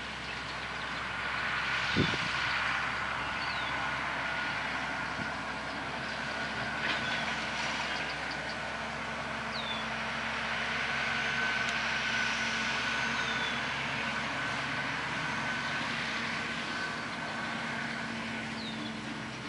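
Challenger row-crop tractor's diesel engine running steadily under load while pulling a harrow, a drone with a held high whine that grows somewhat louder toward the middle. A bird gives short falling chirps every few seconds.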